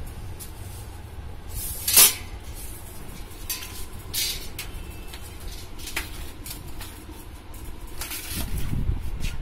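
Scattered clicks and knocks of handling and clatter, with one sharp knock about two seconds in, over a steady low rumble.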